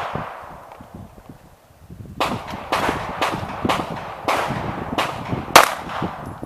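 Pistol shots: after a fading echo and about two seconds of quiet, a run of about eight sharp shots comes roughly two a second, each with a short echo, the loudest a little before the end.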